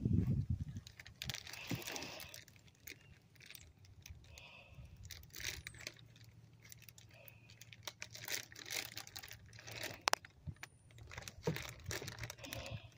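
Hot charcoal in a kettle grill crackling and ticking irregularly, with scattered sharp clicks and a faint hiss.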